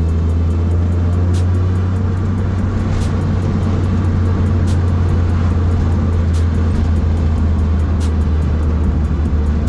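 Toyota Starlet EP71 being driven: a steady low engine and road drone, with music playing over it.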